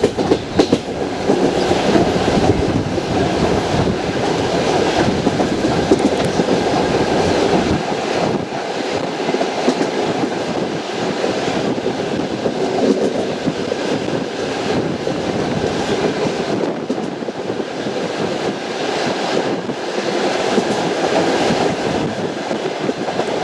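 Passenger train's wheels knocking over the rail joints in a steady clickety-clack, over the continuous rumble of the moving carriage.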